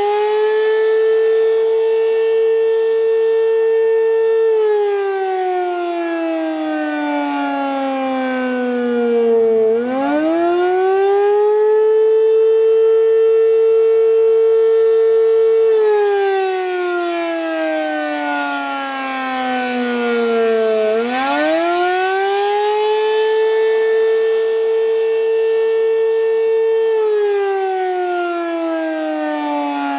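American Signal RM-127 rotating outdoor warning siren sounding the Attack signal, very loud: a wail whose pitch holds high for several seconds, slides slowly down, then climbs quickly back up, twice.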